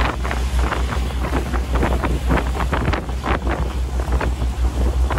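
Strong wind buffeting the microphone in irregular gusts, a heavy rumble, aboard a catamaran moving through choppy water.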